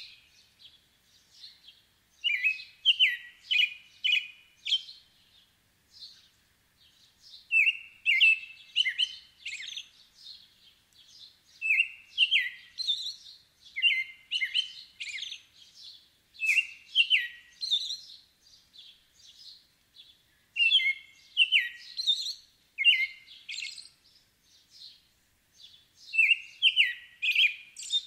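American robin singing: short whistled caroling phrases, given in runs of three or four with brief pauses between the runs.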